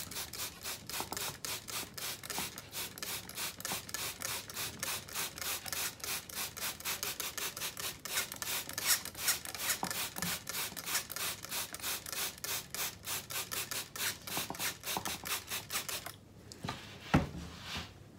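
Hand trigger spray bottle pumped rapidly, about four or five squirts a second, wetting the surface of freshly repotted bonsai substrate. The spraying stops near the end and is followed by a single sharp knock.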